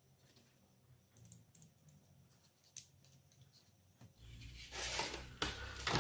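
Faint scattered clicks of small parts and wires being handled. About four seconds in, louder rustling and handling noise close to the microphone takes over, with a low rumble.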